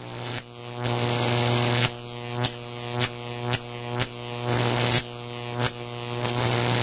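Buzzing electronic synth drone, a low hum with a stack of overtones, swelling and cutting back again and again about every half second to second.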